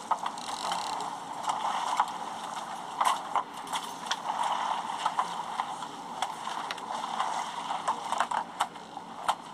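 Steady rushing noise of a fishing boat on open water, with scattered sharp clicks and knocks.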